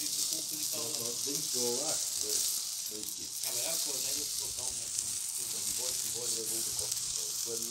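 Sausages, pork and chicken skewers sizzling on a charcoal grill grate over hot coals, a steady high hiss, with voices talking in the background.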